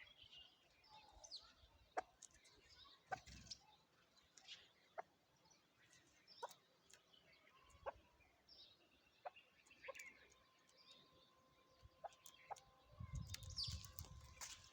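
Faint chukar partridge calling: scattered short, sharp notes about a second or so apart, with faint high chirps between them.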